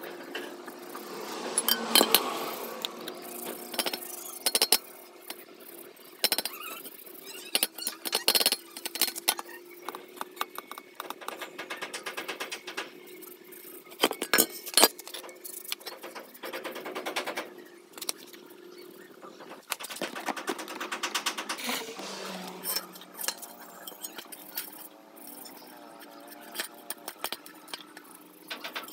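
A Yamaha 125ZR motorcycle swing arm being scrubbed with a rag and shifted about on a concrete floor: irregular clinks and knocks of metal on concrete, with the rag rubbing between them.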